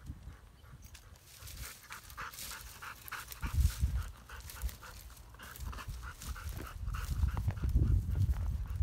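Kangal dog panting rapidly, about four breaths a second. Low rumbling comes in partway through and again near the end.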